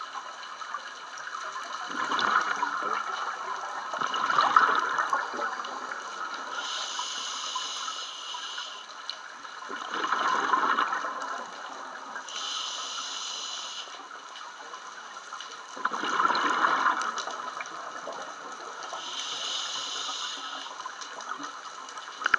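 Scuba diver breathing through a regulator underwater: a hiss of inhalation through the regulator alternating with gurgling surges of exhaled bubbles, the cycle repeating about every six seconds.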